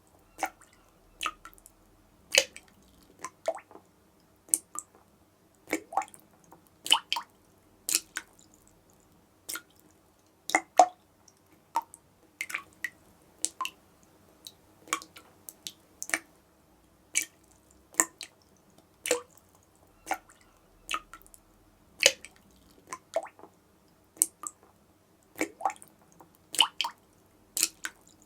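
A dripping tap: single water drops falling at an uneven pace, roughly one or two a second, each a short, sharp plink, some louder than others.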